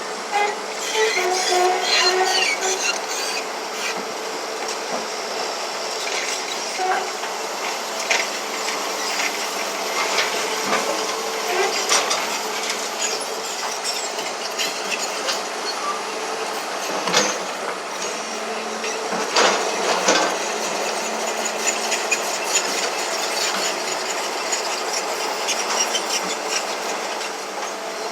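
Komatsu D155AX-5 crawler bulldozer working: a steady, loud machine noise with scattered sharp knocks from its tracks and running gear.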